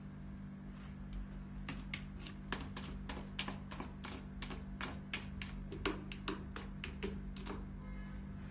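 A long-haired cat raking granular cat litter with its paws in a plastic litter tray, a quick run of dry scratching strokes, several a second, starting about two seconds in and stopping near the end.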